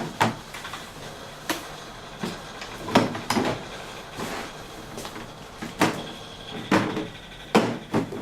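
Irregular knocks and clunks of hard objects being handled and set down, about ten in all, some in quick pairs.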